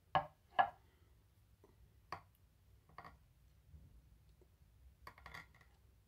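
Metal spoon clinking and scraping against a small glass bowl while scooping banana pudding: two sharp clinks in the first second, then single ones about two and three seconds in and a short flurry near the end.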